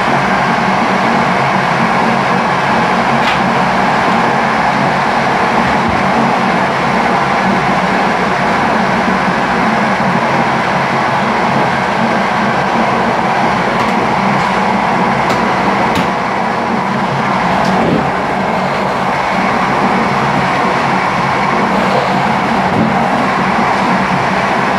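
Train running steadily along the rails at speed, a constant rumble of wheels on track with a steady low hum underneath. A few faint clicks come through, one a few seconds in and several in the second half.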